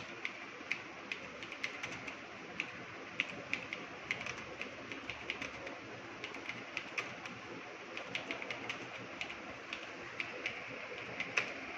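Computer keyboard being typed on: an uneven run of key clicks, a few a second, over a steady hiss.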